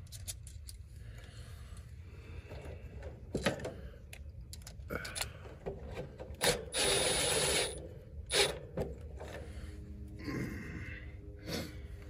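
Cordless Milwaukee drill running for about a second near the middle, driving a screw to mount a heat pump's defrost control board, among scattered clicks and rustling from handling the wires and board.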